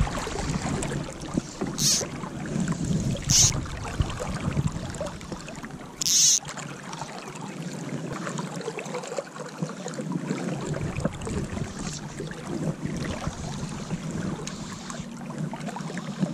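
Steady rush of creek water around the angler, cut by a few short, sharp swishes of fly line being cast, the clearest about two, three and a half, and six seconds in.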